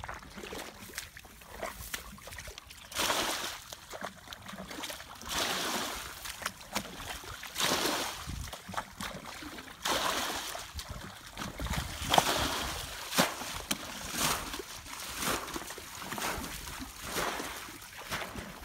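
Shallow muddy water splashing and sloshing in irregular surges as hands grope and scoop through a flooded ditch, with a few sharp clicks.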